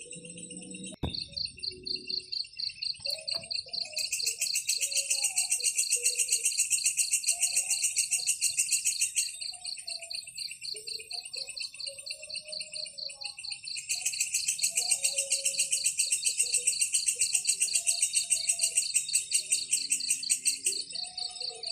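Nature ambience of insects trilling in a steady rapid high pulse, with a louder buzzy pulsing chorus that swells in twice for several seconds each time. Softer, lower bird calls come and go underneath.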